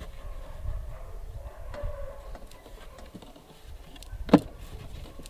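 Handling noise from hands working inside an RC boat hull: low rumbling and small clicks, with one sharp knock about four seconds in that rings briefly.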